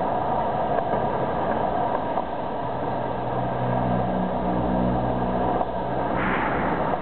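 Traffic noise on a city street: a steady rumble of passing cars, with one vehicle's engine hum rising in the middle and a short hiss about six seconds in.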